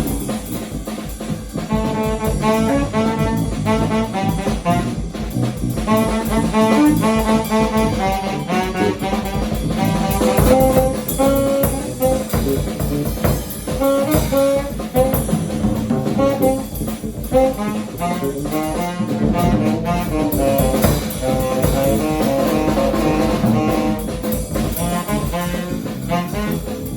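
Free jazz improvisation: a tenor saxophone plays quick runs of notes over bass and a drum kit.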